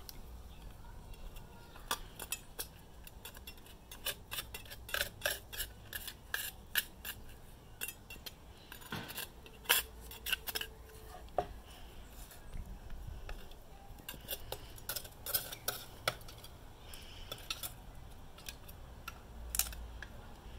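A chef's knife blade scraping and clicking against the inside of a gaper clam's shell as the clam is shucked, in irregular clusters of sharp clicks.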